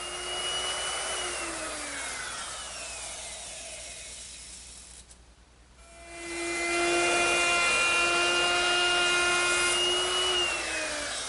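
Handheld router with a straight bit cutting a tongue into the end grain of a tabletop, a high steady motor whine over the hiss of the bit cutting wood. The whine falls away about a second in and goes quiet briefly. It builds up again about six seconds in for the next pass, runs steady and falls in pitch near the end.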